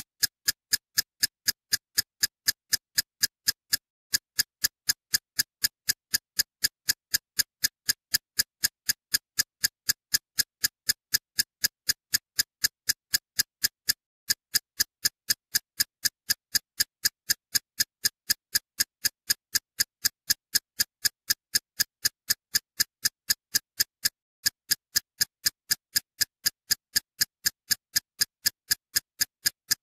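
Steady, even ticking: sharp, bright clicks at about three a second, with a brief break roughly every ten seconds as the track loops.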